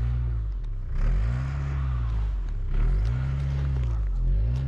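A car engine revving up and easing off again and again, about every second and a half, its pitch rising and falling each time: a car stuck in snow spinning its wheels as the driver tries to rock it free.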